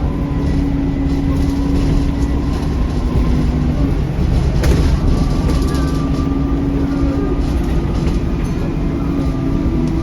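Alexander Dennis Enviro400 Trident double-decker bus driving, with a steady low engine rumble and held whining tones from the driveline and turbo that shift pitch a few times. There is one sharp knock a little under halfway through.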